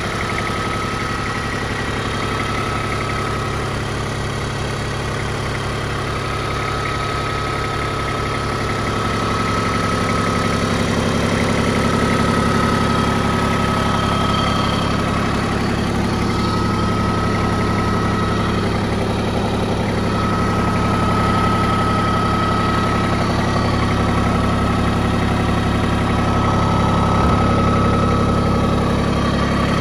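Iseki TPC153 crawler tractor's three-cylinder diesel engine idling steadily. It grows a little louder about nine seconds in.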